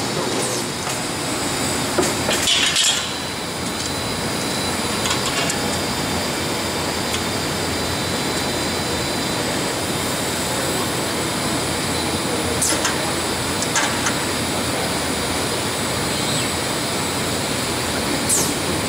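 Automated brazing machine running: steady mechanical noise with a handful of sharp clicks and clinks from its moving parts, a small cluster about two to three seconds in, then single ones spread through the rest.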